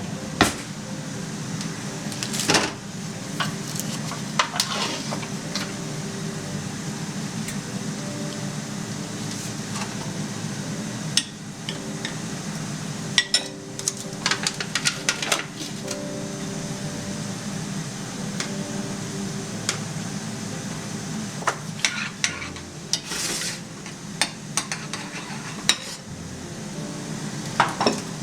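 Kitchen utensils and dishes clinking, scraping and knocking in scattered short clusters, as in stirring and handling bowls during food prep, over a steady low appliance hum.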